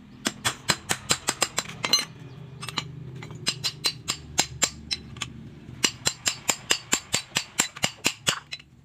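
Rapid hammer blows on the metal gear case of a brush cutter's blade head, about five a second, in a short run, a pause of about a second and a half, then a longer run; the gear head is being knocked apart to get at its bearing.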